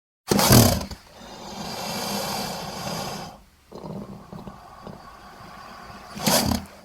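Designed monster vocal effect for a were-hyena, layered from film and game creature calls: a sudden loud cry, then a long growling call. After a short break comes a lower, quieter rumble, and a second loud cry near the end before it cuts off.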